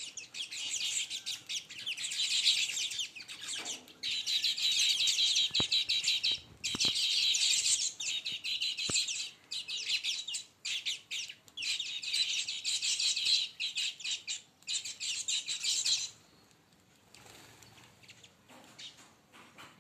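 A flock of baya weavers chattering: dense high chirping in long stretches broken by short pauses, dying away about three-quarters of the way through.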